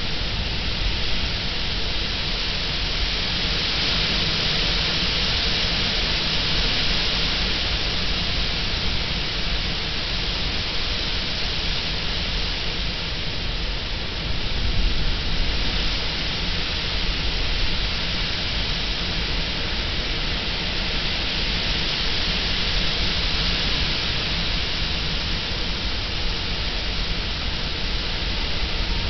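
Strong wind rustling through tall weeds and shrubs, a steady hiss that swells with the gusts, over a low rumble of wind buffeting the microphone.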